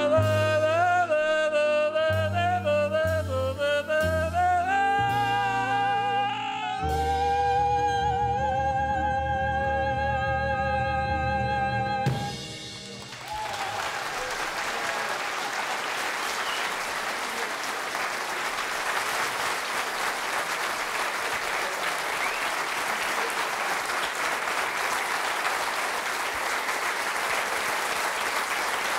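Live singing with a small band's accompaniment, moving through the last phrase and ending on a long held note about twelve seconds in, then a theatre audience applauding steadily.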